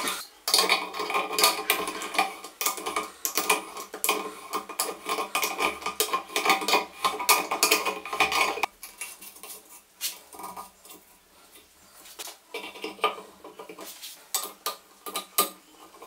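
Metal tools clinking and scraping against a chrome single-handle faucet as its cartridge is tightened back into the body. There is a dense run of metallic clicks and rattling for about eight seconds, then scattered clicks.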